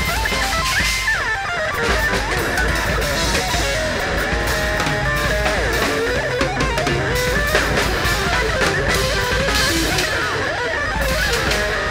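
Electric guitar solo of quick runs with sliding, bending notes, played over a busy drum kit.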